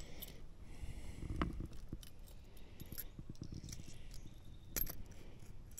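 Faint handling noise as a hooked fish is unhooked for release: scattered small clicks and knocks, with a sharper click about one and a half seconds in and another near the end.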